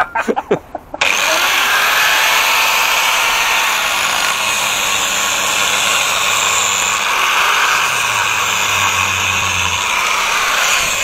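Angle grinder starting about a second in and then running steadily under load as its abrasive disc cuts grooves into a truck tyre's rubber tread.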